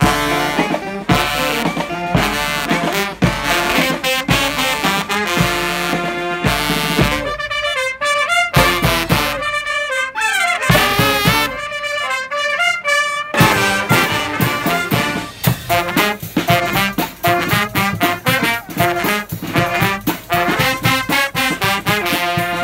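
A street brass band of trumpets, trombones and saxophones with drums playing loudly. About seven seconds in, the drums and low brass drop out and the higher horns play fast, sliding runs on their own for about six seconds, then the full band comes back in.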